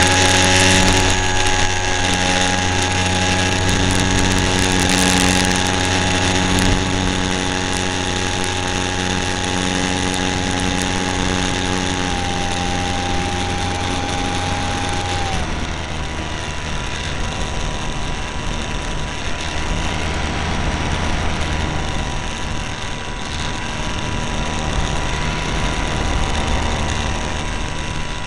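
Radio-controlled float plane's motor, heard from a camera on board, running at high throttle through a takeoff from water and climb with a steady high whine. About fifteen seconds in its pitch drops and it runs on at a lower, steadier note.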